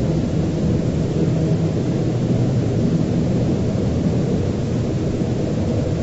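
Steady low rumbling drone with faint held tones in it: a dark ambient sound-design bed for an analog-horror emergency broadcast.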